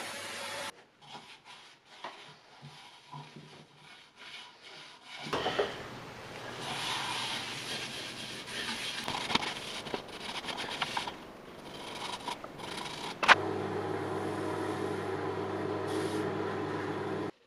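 A drill-mounted sanding pad against a bowl spinning on a wood lathe, with a steady hum that cuts off suddenly. Then quieter handling clicks and a cloth rubbing sanding sealer into the wood. After a sharp click about thirteen seconds in, the wood lathe's motor runs with a steady hum while a cloth buffs the spinning bowl.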